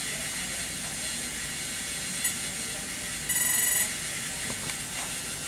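Scorpion 160A OPTO ESC beeping over a steady hiss: one short beep, then about a second later a half-second run of rapid beeps. The rapid beeping signals that the firmware update has finished.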